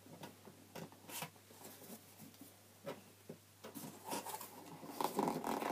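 Fingernails picking and scratching at packing tape on a cardboard box, making faint scattered scrapes and clicks that come thicker near the end.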